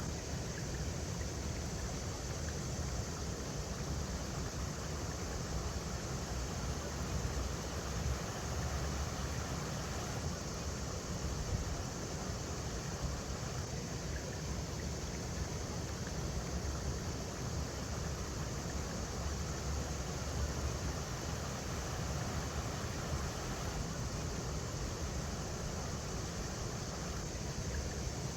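Steady rushing of a river flowing over rocks, with a constant low rumble underneath.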